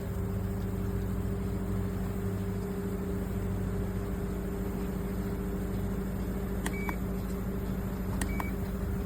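Rechargeable camping mist fan running with a steady motor hum and whoosh of air. Two short electronic beeps come near the end.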